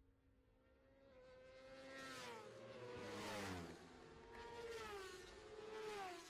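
Faint superbike racing motorcycles going past, the engine note dropping in pitch as each goes by: one pass about three seconds in and another around five to six seconds in.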